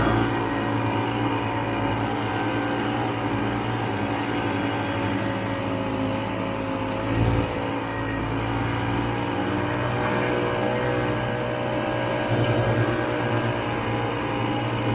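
Vintage Ski-Doo snowmobile's two-stroke engine running steadily while the sled moves through deep snow, with a short louder burst about seven seconds in.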